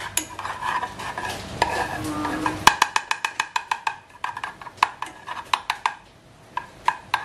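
Spoon stirring half-melted margarine in a metal pot, scraping at first, then a run of sharp clinks against the pot, several a second, from about three seconds in.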